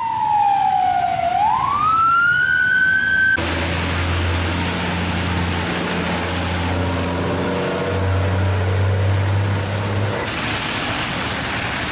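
An emergency vehicle's siren glides down, then rises and holds high, and cuts off suddenly a little over three seconds in. After that comes steady traffic noise on a wet road with a low engine hum, turning hissier near the end as a vehicle passes over the wet asphalt.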